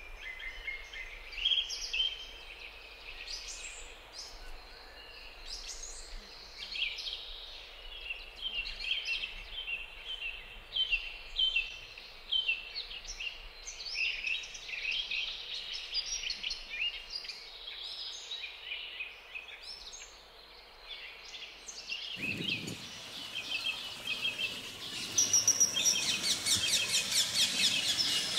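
Wild birds chirping and calling in many short, sharp notes over a steady faint hiss of the outdoors; the calling grows louder and denser near the end.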